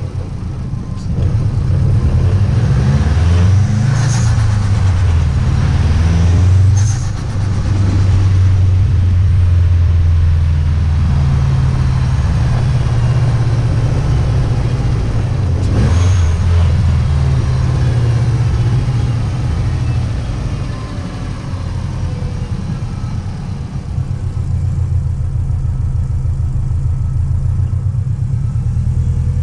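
Subaru WRX STi's turbocharged flat-four engine and exhaust under repeated acceleration, the revs climbing and dropping through gear changes. Brief sharp, hissy sounds come about 4, 7 and 16 seconds in.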